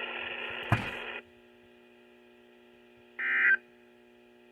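NOAA Weather Radio broadcast: the announcement audio, with a sharp click, cuts off abruptly just over a second in and leaves a faint steady hum. About three seconds in comes a short, shrill burst of data tone, and a second burst starts at the very end. These are EAS SAME digital bursts, most likely the end-of-message bursts closing the weekly test.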